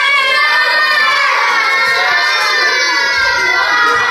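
A crowd of young children shouting and chattering all at once, many high voices overlapping without a break.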